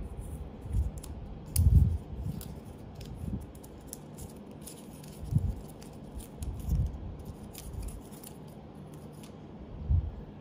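A coiled Lightning to USB-C charging cable being unwrapped and uncoiled by hand: a scatter of small sharp clicks and crinkles as the wrap tabs come off, with a few dull handling bumps.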